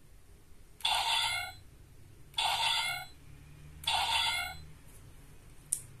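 The DX Raising Sword toy's speaker plays a short electronic sound effect three times, about a second and a half apart, each a brief ringing chime. A single sharp click comes near the end.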